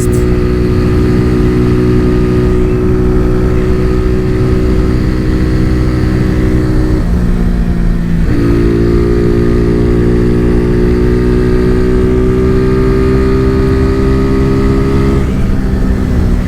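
Modified Honda CG Fan 125 single-cylinder four-stroke engine accelerating hard, its pitch climbing steadily and then dropping at two upshifts, about seven seconds in and again near the end. Wind rushes on the microphone throughout.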